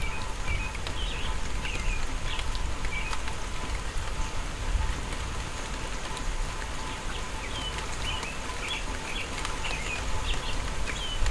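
Steady rain falling on lawn and trees, with a bird calling through it in short chirps, a cluster in the first few seconds and more in the second half.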